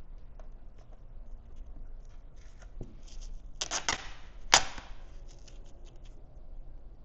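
Vinyl headlight tint film being handled and pressed down: scattered light crinkles and clicks, thicker just before the middle, and one sharp snap just past the middle.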